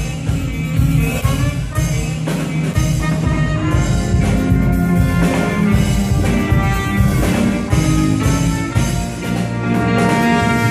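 Live band playing: trumpet and trombone carrying the tune over a drum kit, keyboard and guitar.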